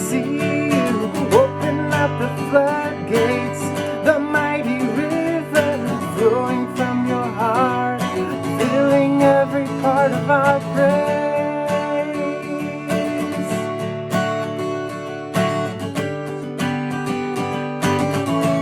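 Worship-song music with no words: strummed acoustic guitar holding chords, and a sliding melody line over it.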